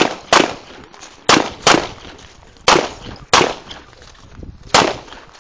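A Gen 4 Glock 17 9mm pistol firing about seven shots, mostly in quick pairs: two, a pause, two, a pause, two, then a single shot near the end. Each shot is sharp, with a brief echo after it.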